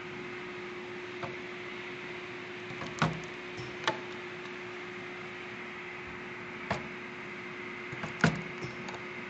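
Semi-automatic pneumatic cutting machine working: a handful of sharp knocks from its strokes, the loudest about 3 seconds and 8 seconds in, over a steady machine hum.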